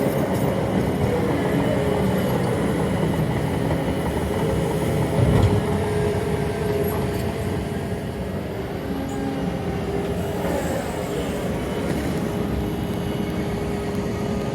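Diesel excavators unloading spoil from freight wagons: heavy engines running steadily, with one loud low thump about five seconds in.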